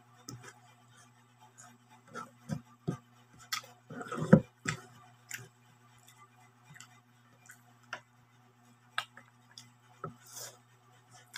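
Close-up eating sounds from a man eating with his fingers: irregular smacks and clicks of chewing and mouth noises, with a louder burst about four seconds in. A steady low hum runs underneath.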